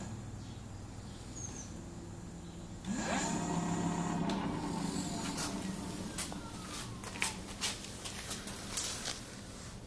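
Electric bicycle motor starting up about three seconds in and running with a steady whine, driven by a repaired motor controller under test. Later its pitch falls away while a series of sharp clicks and ticks follows.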